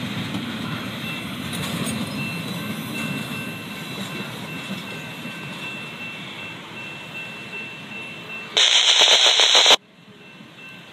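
Wheels of a double-stack intermodal freight train rolling on the rails, fading slowly as the last cars move away, with a faint steady high tone throughout. Near the end, a loud harsh burst of noise lasts about a second and cuts off abruptly.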